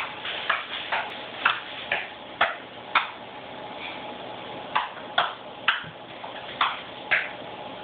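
A child's shoes tapping and stomping on a tiled floor: about a dozen sharp, irregular clicks, with a pause of a second or so midway.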